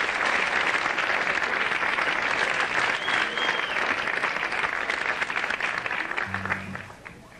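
Audience applauding, with a whistle from the crowd about three seconds in. The applause dies down near the end as a few low, steady instrument notes sound from the stage.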